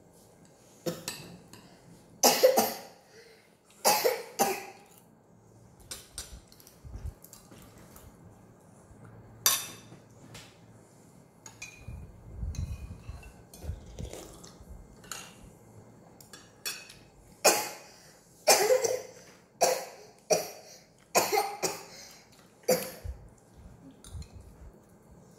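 Children's spoons and forks clinking and scraping on plastic plates and bowls during a meal, a string of short, sharp clicks at irregular intervals. A brief low rumble about twelve seconds in.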